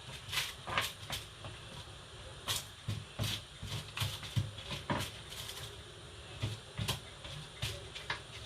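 Scattered light clicks and knocks of kitchen things being handled, about a dozen at irregular intervals, over a steady low hum.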